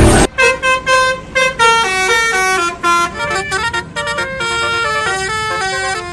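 Basuri-style 'telolet' bus horn playing a tune: a run of short pitched horn notes stepping down and up, sometimes two at once, starting a moment in.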